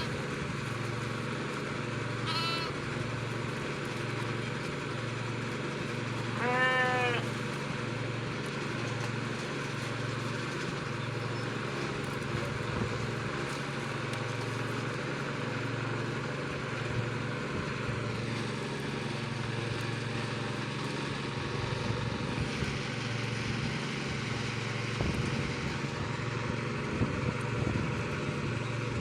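Sheep bleating, a few separate calls in the first seven seconds, the loudest about six and a half seconds in, over a steady low hum.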